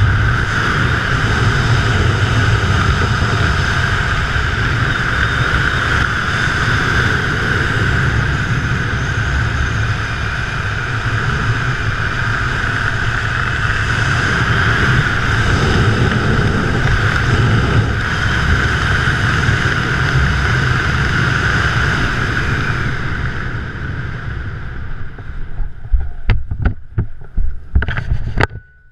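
Wind rushing over the camera microphone during a parachute canopy descent, with a steady high whistle. Near the end the rush eases, and a few sharp knocks and thumps come as the parachutist touches down on the grass.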